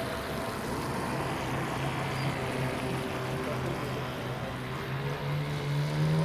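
Radio-controlled model speed boat's motor running as the boat moves across the water, a steady hum whose pitch climbs and grows louder near the end as it speeds up.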